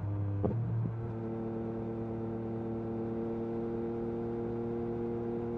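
Yamaha MT-09 SP's 890 cc inline-three engine idling through an Akrapovic carbon racing exhaust, with two quick throttle blips about half a second in, then a steady idle.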